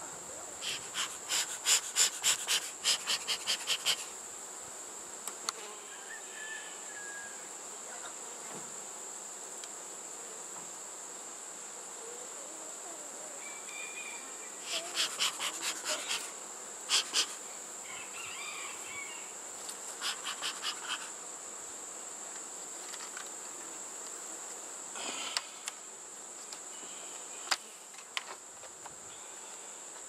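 Bee smoker bellows puffed in quick runs of about four puffs a second, a long run near the start and several shorter ones later. Under them a steady high-pitched insect trill carries on.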